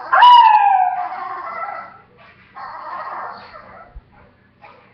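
A dog howling: one loud call near the start that slides downward in pitch and lasts over a second. A softer, rougher howl follows about two and a half seconds in.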